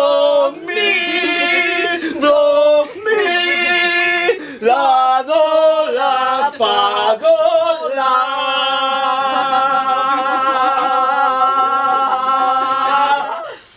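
A man and a woman singing together in a string of held notes, ending on one long note of about five seconds that cuts off near the end.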